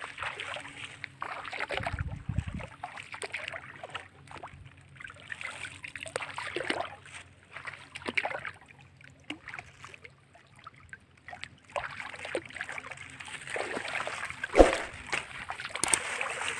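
Shallow water sloshing and splashing in irregular swishes as a person wades through a flooded rice paddy and reaches down into the water, with a low thump about two seconds in and a sharp knock late on.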